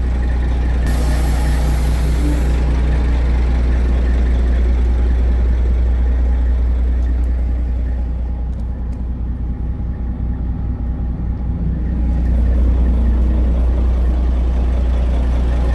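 Detroit Series 60 12.7-litre diesel engine of a 1989 Kenworth W900 dump truck idling steadily, with a short hiss about a second in. The running sound dips briefly near the middle.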